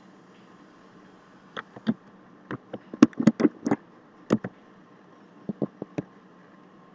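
Computer keyboard keys clicking as a six-digit code is typed: an uneven run of taps, thickest near the middle. A few more clicks follow near the end, the last a mouse click on a Submit button.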